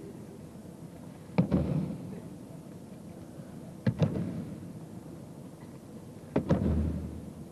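Aikido ukes taking breakfalls on tatami mats. Three sharp slaps, each with a thud, come about two and a half seconds apart, and each has a short echoing rumble after it.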